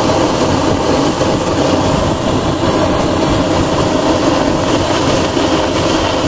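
Fire hydrant flowing under test: water rushing out of a hose outlet through a test fitting with pressure gauges. The jet makes a loud, steady hiss.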